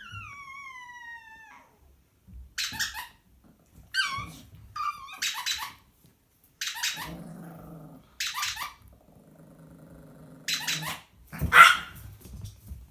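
A squeaky toy gives one falling squeak. Small dogs then bark in sharp yaps about six times, with long low growls in between. The loudest bark comes near the end.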